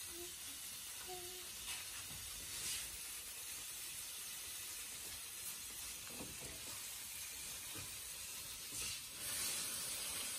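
Sausages sizzling on a barbecue grill: a steady hiss that briefly gets louder near the end.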